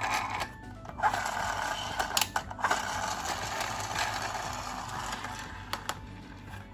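Toy ambulance minicar running, a mechanical whirring of its wheels and gears that starts about a second in and fades away, with a few sharp clicks along the way.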